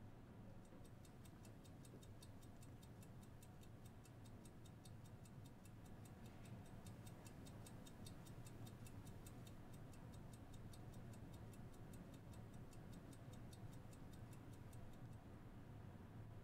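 Faint, fast, even ticking of a wristwatch, about five ticks a second. It starts about a second in and stops shortly before the end, over a low steady hum.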